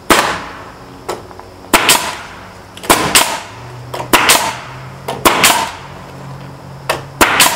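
Pneumatic nail gun driving nails into wooden strapping boards: a series of loud, sharp shots, mostly in quick pairs a quarter second apart, about one pair a second. The gun fires only when its nose is pressed into the board.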